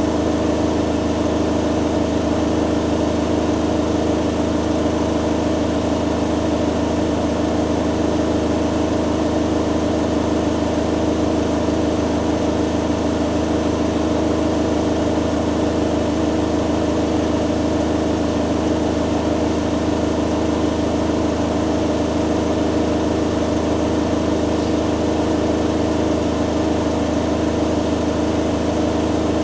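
Hoover Dynamic Next DXA610IW3 front-loading washing machine in its spin cycle, the drum spinning at a steady speed. It gives an even hum made of several fixed tones, with no change in pitch or level.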